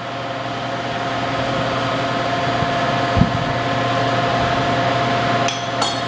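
A steady mechanical hum holding several fixed tones, growing slightly louder, with a dull thump about halfway through and two sharp clicks near the end.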